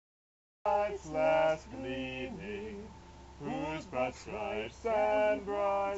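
A man singing slowly, with long held notes that slide from one pitch to the next. The audio drops out completely for the first half second or so before the singing comes in.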